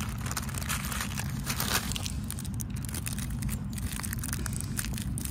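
Clear plastic bag crinkling and rustling as firecracker packs are rummaged through and handled, in a run of small irregular crackles.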